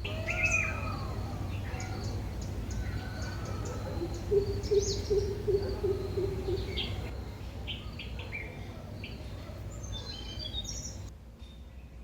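Several birds calling and chirping in short, varied notes. A few seconds in comes a run of lower, repeated notes. A steady low rumble runs underneath.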